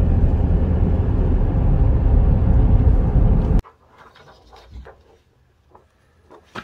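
Loud, steady low rumbling noise that cuts off abruptly about three and a half seconds in, followed by a much quieter stretch with a few faint clicks.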